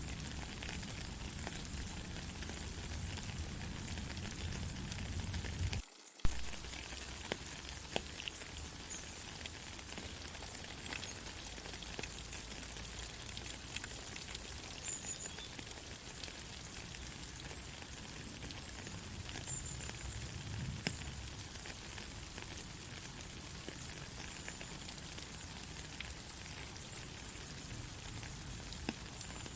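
Steady rain falling, with many individual drops ticking close by. A low rumble sits underneath for the first six seconds; then the sound drops out briefly and comes back with a sharp click.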